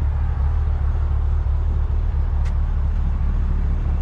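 2020 C8 Corvette's 6.2-litre LT2 V8 idling steadily, a deep even hum. A single faint click about two and a half seconds in.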